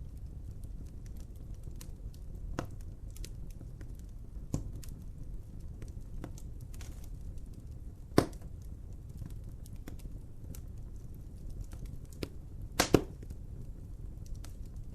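Wood fire crackling over a steady low rumble, with scattered sharp pops; the loudest come about eight seconds in and as a quick pair near thirteen seconds.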